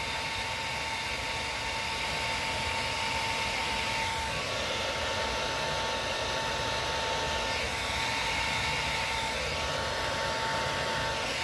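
Handheld 1875 Pro hair dryer running on maximum heat: a steady rush of air with a thin, steady whine, blowing onto plastic eyeglass temple tips to heat-shrink them.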